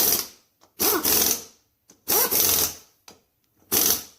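Impact wrench running in short bursts of about half a second, three full bursts and the tail of another, hammering ATV wheel lug nuts tight.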